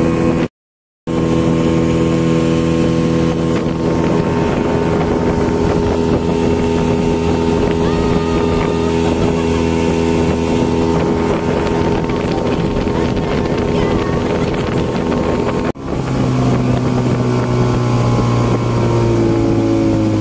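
Motorboat engine running steadily at speed while towing a banana boat, over a rushing hiss of water and wind. There is a half-second dropout near the start, and about sixteen seconds in the engine note shifts deeper, sinking slightly near the end.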